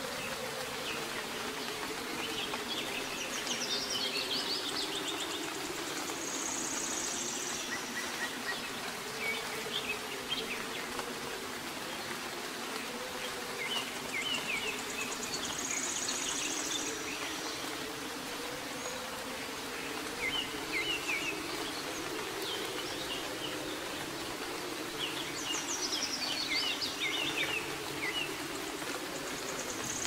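Steady soft rain hiss with small birds chirping in short clusters every few seconds and a brief high trill a few times, over a low wavering buzz.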